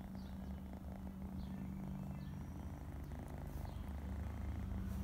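Young orange-and-white tabby cat purring steadily, close to the microphone.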